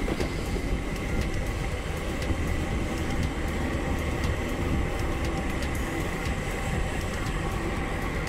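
Steady rumble of road and wind noise from a road bike rolling along, picked up by a bike-mounted camera, with many small ticks and knocks.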